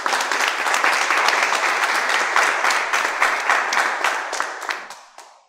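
Audience applause: many hands clapping densely, fading out near the end.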